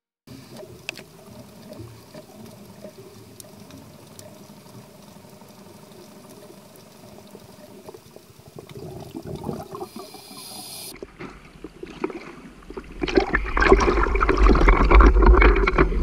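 Faint underwater ambience with scattered small clicks, heard by a camera below the surface. From about two-thirds of the way in, much louder water sloshing and splashing around a camera at the waterline, over a low rumble.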